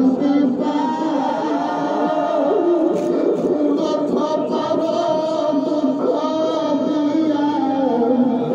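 An Islamic devotional gojol (Bengali ghazal) being sung, one voice holding long, wavering notes of the melody.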